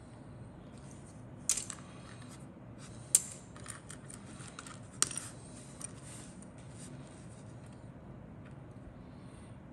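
Small grey plastic parts of a 1/48 scale model aircraft kit clicking and tapping against each other as they are handled: three sharp clicks about two seconds apart, with fainter ticks between.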